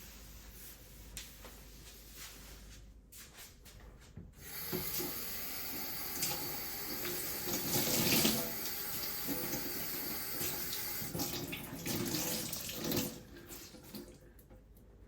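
Tap water running into a sink while washing up: the water comes on about four seconds in, splashes unevenly for about nine seconds, and is turned off near the end.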